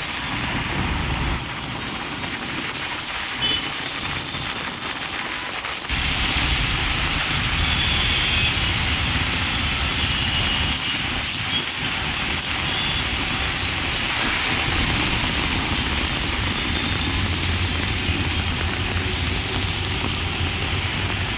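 Heavy rain pouring onto a waterlogged city road, with traffic of buses and autorickshaws driving through the water under a low rumble of engines. The sound steps up abruptly about six seconds in and shifts again around fourteen seconds.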